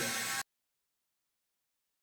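The fading metallic ring left by a hammer blow on a steel part, cut off abruptly about half a second in, then dead silence.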